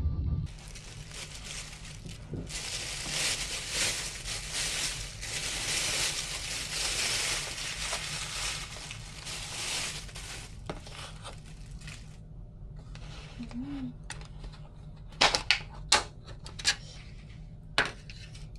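Thin plastic carrier bag rustling and crinkling for several seconds as a takeout food container is pulled out of it. Near the end come a few sharp plastic clicks and knocks, the loudest sounds here, as the plastic takeout container is handled on the desk.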